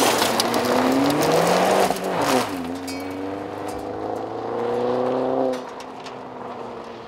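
A 2014 Chevrolet Sonic's 1.4-litre turbocharged four-cylinder accelerates hard away on a dirt road, its tyres spraying gravel. The revs climb, drop sharply about two seconds in, then climb again. The engine sound fades as the car pulls away into the distance near the end.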